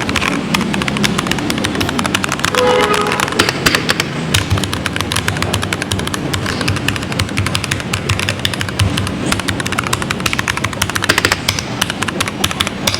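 Keychron mechanical keyboard typed on rapidly: a dense, continuous clatter of sharp key clicks.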